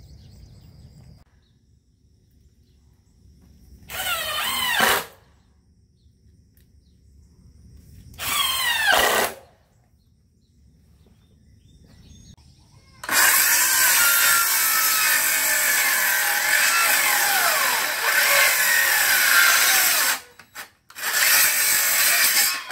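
DeWalt cordless circular saw running and cutting 2x4 lumber. There are two short bursts about four and eight seconds in, then a long cut of about seven seconds from about thirteen seconds in, and a last short cut near the end. The motor pitch rises and falls as the blade loads up.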